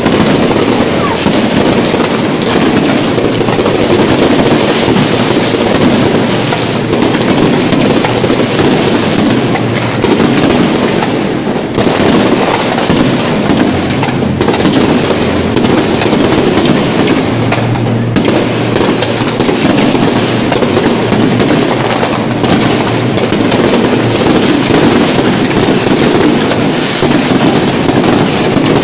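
Fireworks show at very close range: a loud, continuous barrage of shell bursts and crackle, with no pauses between them.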